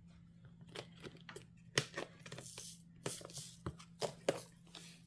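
Handling noises of craft-kit packaging: a run of short, irregular clicks with a couple of brief crinkling rustles in the middle.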